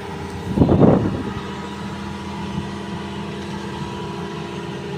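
Hitachi excavator's diesel engine running steadily, with a short rough burst of noise about a second in.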